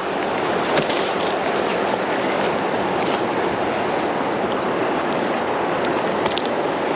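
Steady rush of flowing creek water, with a few faint short ticks.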